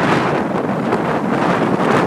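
Strong wind blowing hard across the microphone: a loud, steady rushing noise.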